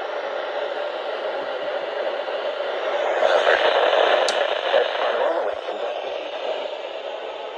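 Steady static hiss from a weather radio receiver picking up a noisy broadcast signal. It swells a little in the middle.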